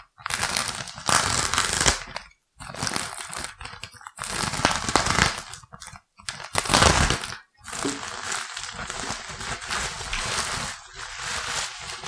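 A snap-off utility knife slicing along the edge of a plastic courier mailer, and the thin plastic crinkling as it is cut, pulled open and crumpled. The noise comes in five or so stretches separated by brief pauses.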